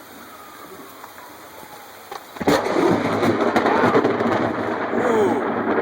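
Light rain, then about two and a half seconds in a sudden loud crack of close thunder that carries on as a crackling, rolling rumble.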